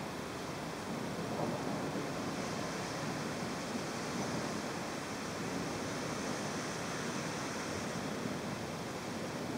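Steady rushing noise of a thunderstorm downpour and wind, growing a little louder about a second in.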